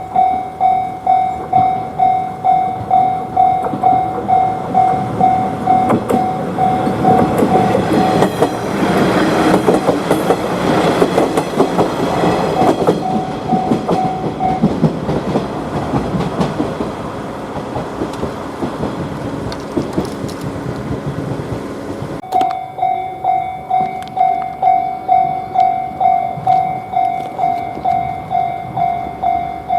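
Japanese level-crossing warning bell ringing in a steady clang about twice a second while a train runs past, loudest about 9 to 13 seconds in. The bell stops about halfway through, and the train noise fades away. After an abrupt cut at about 22 seconds, a crossing bell rings again.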